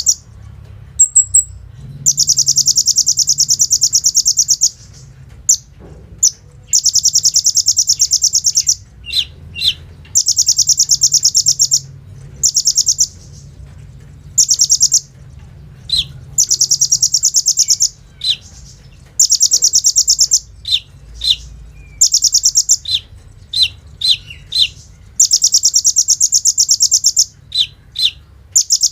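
Kolibri ninja sunbird singing: a string of loud, very fast machine-gun-like trills, each lasting one to three seconds, broken by short sharp high chips. A faint low hum lies underneath.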